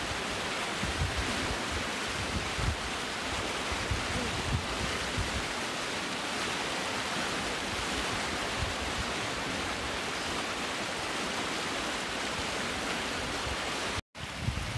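Swollen creek rushing over rocky rapids: a steady, even rush of white water. The sound cuts out for a moment near the end.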